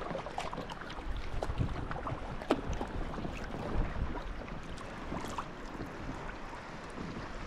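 Water splashing, dripping and lapping around a folding sea kayak being paddled, in small irregular splashes over a steady wash of water noise.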